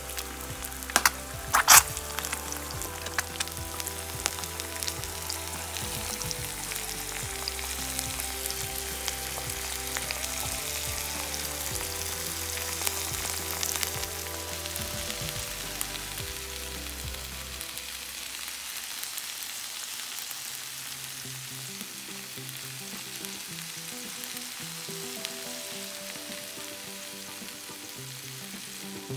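Eggs frying in oil in a nonstick pan: a steady sizzle, with a few sharp clicks in the first two seconds. Soft background music plays underneath.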